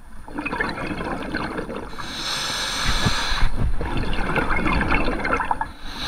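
Underwater scuba breathing through a regulator: exhaled bubbles gurgling, a short steady hiss of inhalation about two seconds in, then another long burst of bubbles.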